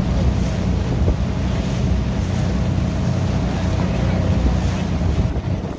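A boat's engine running steadily under heavy wind rumble on the microphone, with the hiss of water around the hull.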